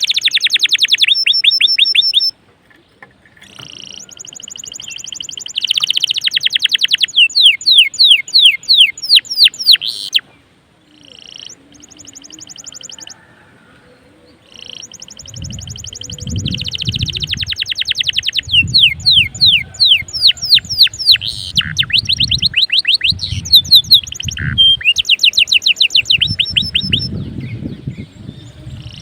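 A domestic canary in full song, singing phrases of rapid trills and fast runs of rising, chirping notes, separated by short pauses. A low rumbling noise runs under the song in the second half.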